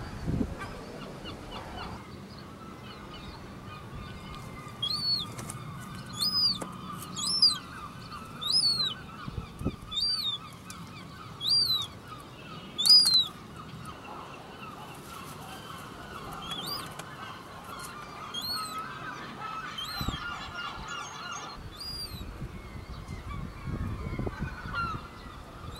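Herring gull chick calling: a series of high, thin peeps, each rising then falling, about one every second or so, loudest in the middle and fainter later. Behind them is a steady chatter of gull calls.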